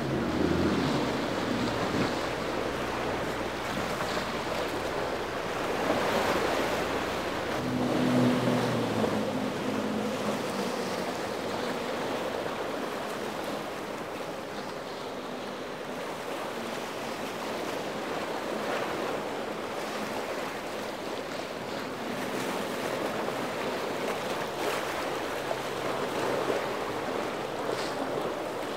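Waves and surf washing, with wind buffeting the microphone. A boat's outboard motors run at the start, and an engine drones again briefly about eight seconds in.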